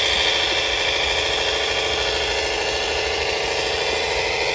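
Radio-controlled model tractor running as it pulls a tipper trailer: a steady engine-like drone with a continuous high whine over it.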